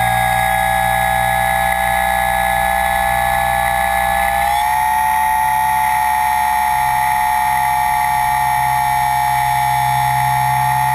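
Motors and propellers of a camera-carrying RC aircraft, whining steadily in flight; the pitch steps up slightly about four and a half seconds in.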